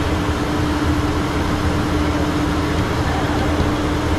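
Steady flight-deck noise of a Learjet in flight: a broad rush of airflow over the cockpit with a low engine rumble and a steady hum.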